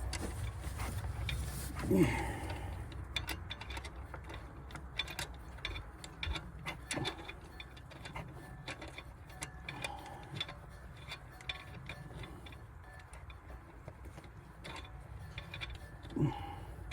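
Scattered small metallic clicks and taps of a ratchet and socket working at a fuel rail plug, irregular and light, while the plug refuses to thread into the rail.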